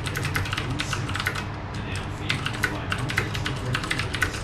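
Typing on a Filco mechanical keyboard with Cherry MX Blue switches: a quick, continuous run of clicky keystrokes, with a brief lull about two seconds in.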